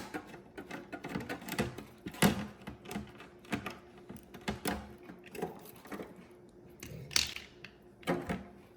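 Irregular clicks and taps of a screwdriver and hard plastic parts being handled as a coffee maker's control-button panel is unscrewed and taken off. The loudest click comes about seven seconds in.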